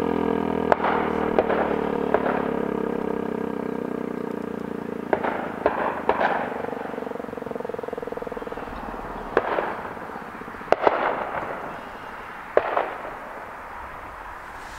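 American Signal T-128 outdoor warning siren winding down at the end of its alert, its tone falling and fading away over the first few seconds. Around nine sharp pops, like firecrackers, go off at irregular intervals over it.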